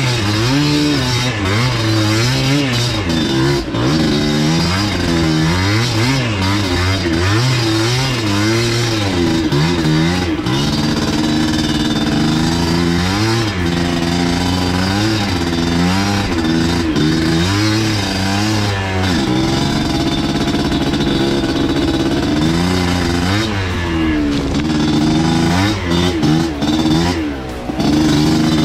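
Enduro motorcycle engine on a trail ride, revving up and falling back over and over in quick waves, with scattered knocks and clatter from the bike.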